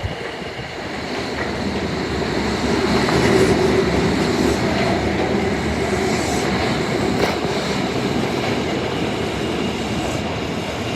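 Osaka Metro Tanimachi Line 22 series subway train running through the station without stopping, wheels clacking over rail joints. The running noise grows louder over the first three seconds or so, then eases a little and holds.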